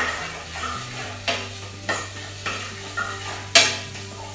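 A spoon scraping and clinking against a metal frying pan, five or so strokes with the loudest near the end, while spices sizzle in hot oil on low heat.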